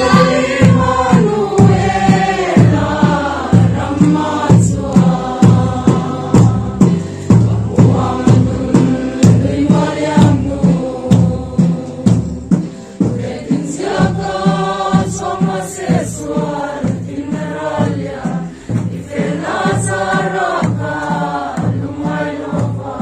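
A group of people singing a hymn together, over a steady low beat about twice a second.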